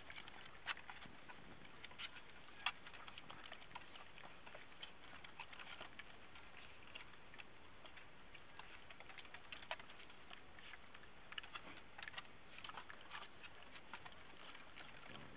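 Sheprador puppies eating dry kibble from a stainless steel bowl: faint, irregular crunching and small clicks, with a few sharper clicks scattered throughout.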